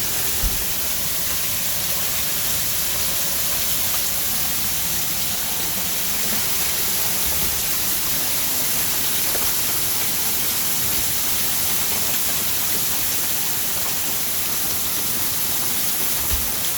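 Hailstorm: hail and rain pelting down in a steady, dense hiss, with a few low thumps.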